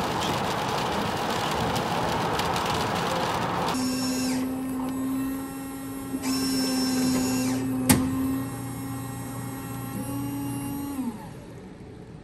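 Car driving on a wet highway, a steady road noise, cuts off about four seconds in. A bean-to-cup coffee machine's motor then runs with a steady hum while it dispenses coffee into a paper cup, with a sharp click about eight seconds in. The hum drops in pitch and stops near the end.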